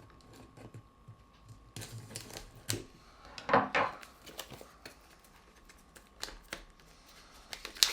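Fingers picking and tapping at the plastic shrink-wrap film on a metal steelbook case: scattered small clicks, with a few brief crinkles of film as it is worked loose.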